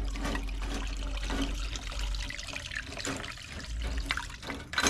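Ultrasonic-cleaner solution being poured out of a carburetor part, splashing and trickling, with small knocks throughout. It grows louder near the end.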